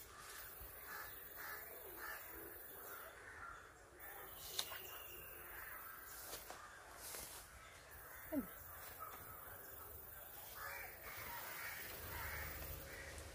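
Crows cawing faintly, off and on, with one short sharp sound about eight seconds in.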